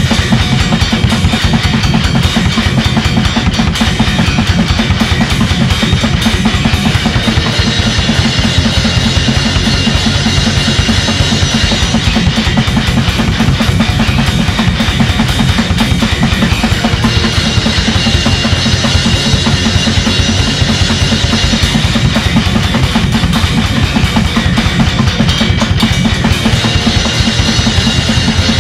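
Music with a busy, fast drum kit beat of bass drum, snare and cymbals under a full band sound. A higher, steady layer comes in about eight seconds in and returns twice more.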